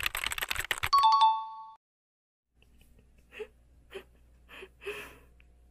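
Title-card sound effect: a rapid clattering rattle that ends in a two-note ding-dong chime, a higher note then a lower one. After it comes a quiet steady room hum with four short soft sounds about half a second apart.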